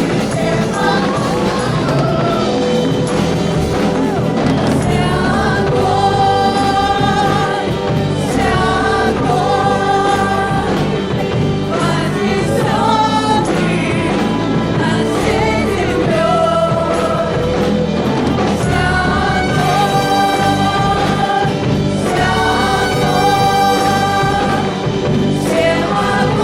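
Live church praise-and-worship music: singers holding long sung lines over a band with a steady bass.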